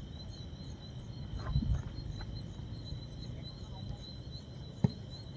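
Steady high-pitched trilling of crickets or similar insects, with a low rumble about a second and a half in and a single sharp knock near the end.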